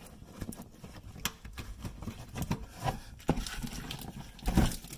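Scattered light knocks, clicks and rustles of hand work at the wheel hub's wiring and connector, with a sharper knock about three seconds in and a louder cluster of knocks near the end.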